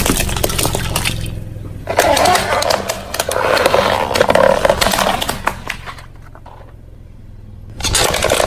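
A car tyre rolling over and crushing brittle objects: a long run of crackling and snapping over a low engine hum, easing off about six seconds in and picking up again near the end.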